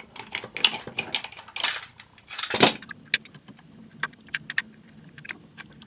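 Hard plastic parts of a vintage toy robot being handled and pulled apart: a string of light clicks and clatters, with a few short scraping rustles in the first few seconds.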